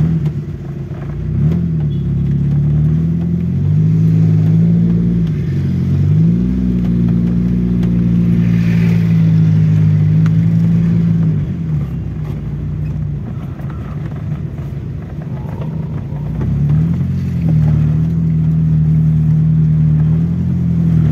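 1985 Honda Civic Wonder's four-cylinder engine heard from inside the cabin while driving. Its note climbs as it speeds up, holds steady for several seconds, then drops back and climbs again a few times.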